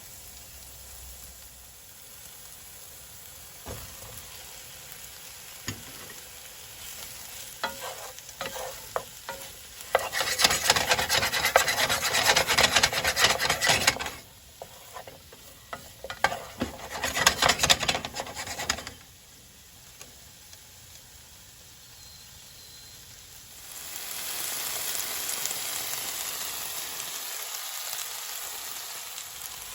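Vegetables being stirred in a hot oiled pan: scattered knocks of a utensil, then two long spells of dense scraping and stirring in the middle. A steady sizzle of frying rises about four-fifths of the way through.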